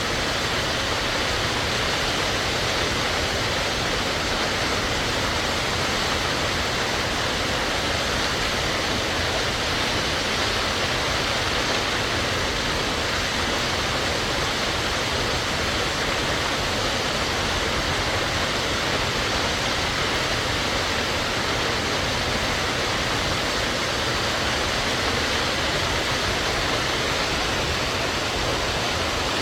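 Warm Springs Falls: a steady, unbroken rush of falling water.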